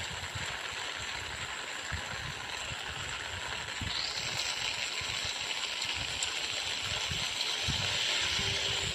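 Heavy rain pouring onto a wet street, a steady hiss of falling water that grows slowly a little louder.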